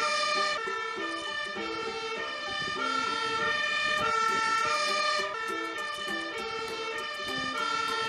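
Fire engine siren sounding continuously, its pitch switching back and forth between higher and lower notes.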